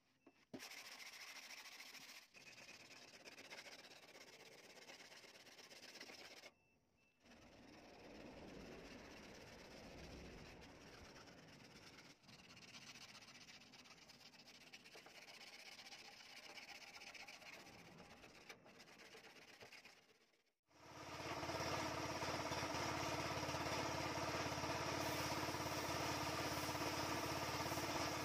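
Faint rustling as masking film is peeled off a motorcycle fuel tank. About two-thirds in an air compressor starts suddenly and then runs steadily and much louder.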